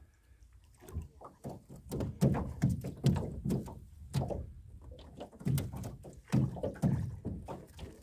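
Gill net being hauled hand over hand into a small boat: irregular knocks and thumps of the net, its line and gear against the hull, several a second.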